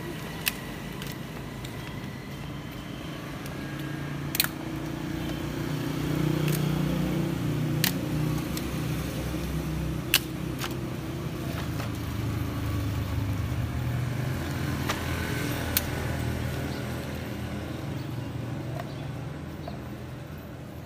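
About five sharp cracks of scrap wood being split into kindling with a blade, several seconds apart. Under them is street ambience with a low vehicle rumble that swells through the middle.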